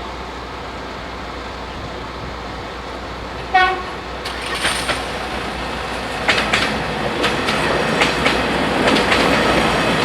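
A passenger train's horn gives one short blast about three and a half seconds in, then the train arrives and passes, its wheels clacking over the rail joints in an uneven series that grows louder.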